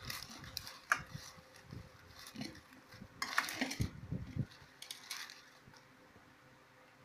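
Dry rice-paper strips crinkling and rustling as they are tossed with chopsticks in a metal pan, with a few sharp clicks of the chopsticks against the pan. The rustling comes in irregular bursts, busiest about three seconds in, and dies away near the end.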